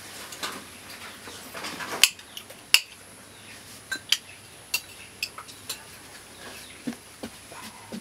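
Metal spoon clinking and scraping against a soup bowl as someone eats, a string of sharp separate clinks, the loudest about two seconds in.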